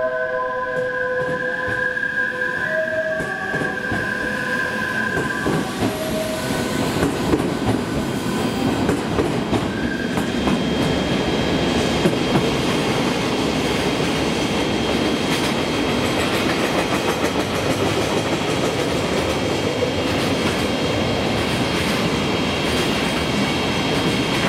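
Odakyu 50000 series VSE electric train pulling out of the station: wheel and rail noise with clicking over the rail joints, growing louder about six to eight seconds in, with a steady high whine from about eight seconds on. For the first five seconds a short electronic melody of stepped tones plays over it.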